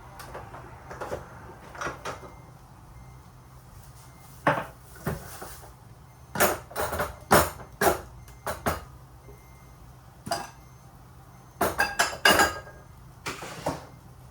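Dishes and cutlery clinking and knocking as they are handled, in irregular clusters of sharp strikes, over a faint steady low hum.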